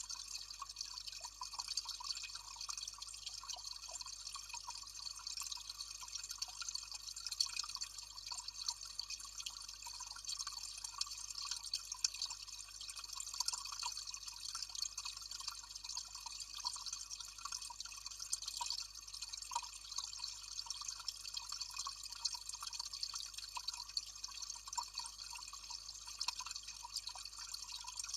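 Water from a small cascade trickling and dripping steadily, with many small drips and splashes.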